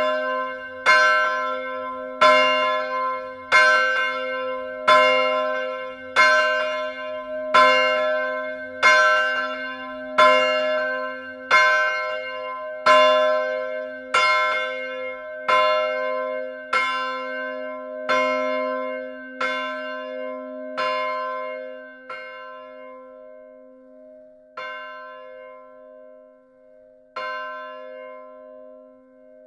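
Church bell 1 of the Pauluskerk, a 771 mm bronze Petit & Fritsen bell cast in 1957 and tuned to c2, swinging with its clapper striking about once every 1.3 seconds, each stroke ringing on. After about two-thirds of the way the strikes thin out to a few fainter, irregular strokes with the hum carrying between them as the bell's swing dies down.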